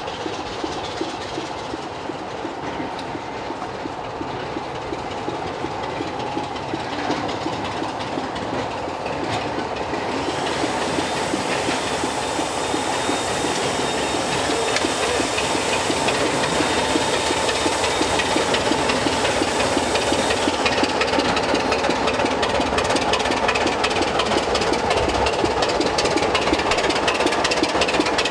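Class 25 diesel locomotive running light on the approach, its engine growing steadily louder as it nears, with wheels clicking over the rail joints. A hiss joins in for about ten seconds midway.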